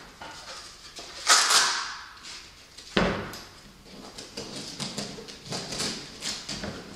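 Nylon camera backpack being handled, with its straps and fittings worked by hand: a loud fabric swish about a second in, a sharp knock at about three seconds, then a run of small clicks and rustles.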